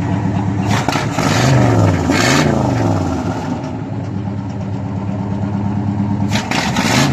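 A car engine idling close by, revved up and back down twice in quick succession in the first few seconds and once more near the end.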